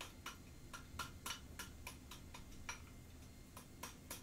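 Light, uneven hammer taps on a stainless steel piece held over the horn of an anvil, about four a second. The blows are opening up the base of the two arms into a rounder curve during hand forging.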